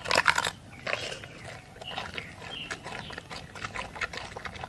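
Giant panda chewing a bamboo shoot: irregular crunching and snapping bites, loudest in the first half second.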